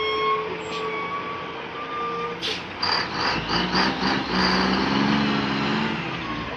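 Heavy logging truck's diesel engine running and pulling harder from about three seconds in, with a rhythmic pulsing. A short sharp hiss comes just before that, like an air-brake release.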